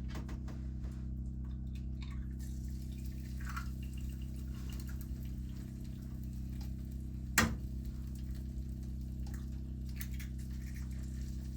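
Bacon and eggs frying in a pan on a wood stove, with a faint crackle and spatter over a steady low hum. A single sharp tap comes about seven seconds in.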